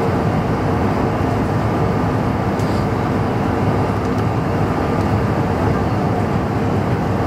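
Steady cabin noise of a Bombardier CRJ-700 climbing after takeoff: the rush of air over the fuselage and the drone of its two rear-mounted GE CF34-8C turbofans, with a few faint steady hums.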